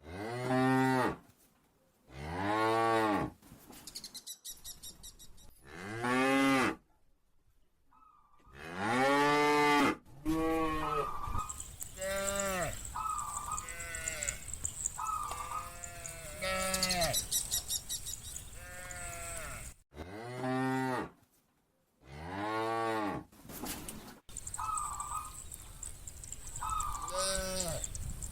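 Cattle mooing again and again, one drawn-out call after another, each rising and then falling in pitch, with some shorter, higher-pitched calls mixed in.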